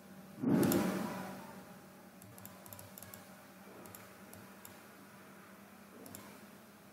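A dull thump about half a second in, then faint, scattered clicks of a computer mouse over a steady low electrical hum.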